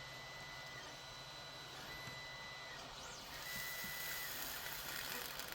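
Solder wick and flux being heated under a soldering iron: a soft sizzling hiss sets in about three seconds in. Under it are a steady low electrical hum and a high whine that comes and goes.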